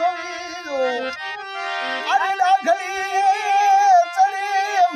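Harmonium playing sustained reed chords under folk singing. About two seconds in a voice holds one long, wavering note.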